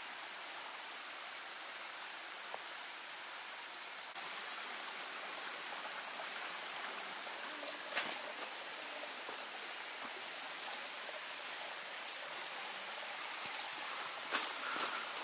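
Steady hiss of water in a wet forest, a little louder from about four seconds in. There is a short knock about eight seconds in and a few more near the end.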